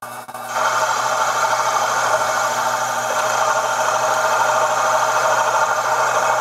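Sherline mill spindle running steadily with a boring head cutting out a hole in a metal plate, a constant machine hum and whine that comes up sharply about half a second in.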